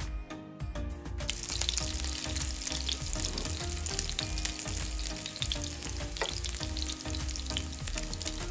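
Köfte (minced-beef meatballs) sizzling and spitting in hot oil in a frying pan. The sizzle swells about a second in.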